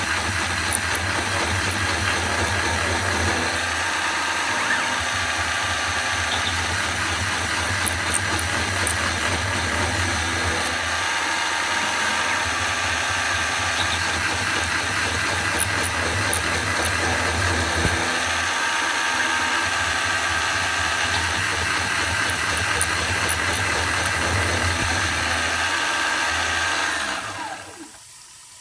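Grizzly mill-drill running steadily while drilling a metal bracket, with brief high squeaks and ticks now and then. The machine winds down near the end.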